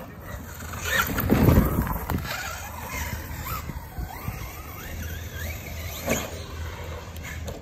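Traxxas Maxx RC monster truck's brushless electric motor whining, rising and falling in pitch as it throttles across grass, with a loud low rush about a second in. A sharp knock about six seconds in, as the truck reaches the dirt jump.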